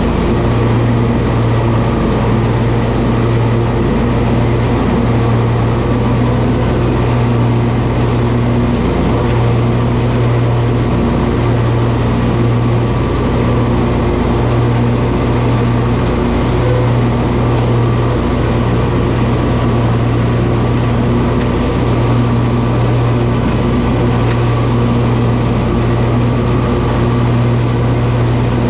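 Toro zero-turn lawn mower engine running steadily at an even speed, a loud constant hum with no revving.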